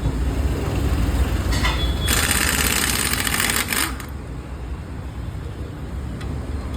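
Compressed-air tool working on a car wheel during a tyre change: a short burst of hissing rattle about a second and a half in, then a longer one for about two seconds, over a steady low hum.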